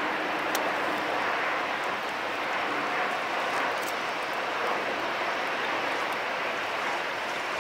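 Boeing 737 jet engines on landing: a steady rush of engine noise as the airliner flares and touches down on the wet runway, with a couple of faint clicks.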